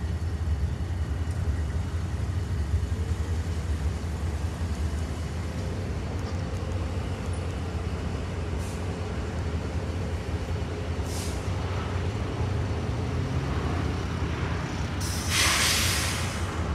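Diesel freight locomotive idling with a steady low rumble. A short burst of hissing air comes near the end, with a couple of fainter brief hisses before it.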